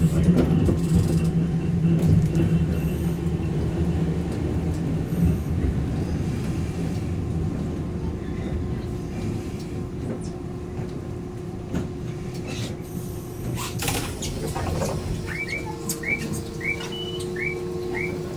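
Randen tram running and slowing to a stop, its low rumble fading as it pulls into the platform. A short noisy burst comes about three-quarters of the way through. Near the end an electronic chirp starts repeating, about two or three short rising chirps a second.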